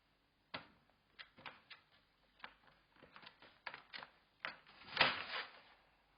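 Irregular clicks and knocks from a golden retriever puppy moving about, about a dozen over a few seconds, with a louder scuffling cluster about five seconds in.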